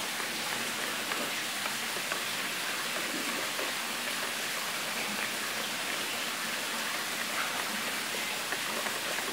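Wire whisk beating thin pancake batter in a plastic bowl: a steady wet swishing, mixing in a freshly added egg.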